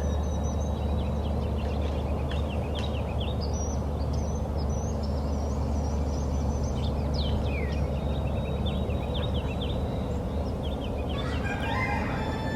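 Songbirds chirping and trilling over a steady low rumble.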